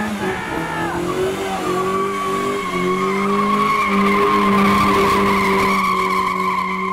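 A modified car's engine held at high revs while its tyres slide and squeal with a steady high pitch. The squeal grows louder about halfway through.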